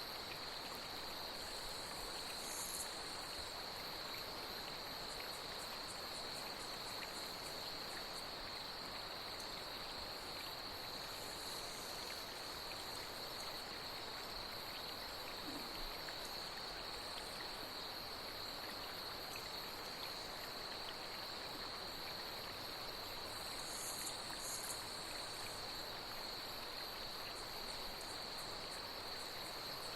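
Steady high trill of a night insect chorus over the even rush of flowing water, with a few brief higher insect buzzes.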